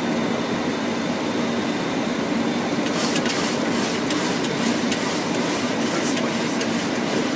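Steady flight-deck noise of a Boeing 737-800 on approach: a constant rush of airflow over the engine hum, heard inside the cockpit. A run of faint, irregular ticks comes in about three seconds in and fades out a few seconds later.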